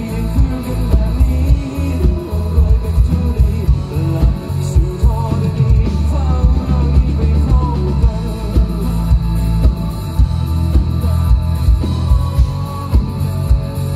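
Live rock band playing through a loud PA: a male singer over electric guitar, heavy bass and a drum kit keeping a steady beat.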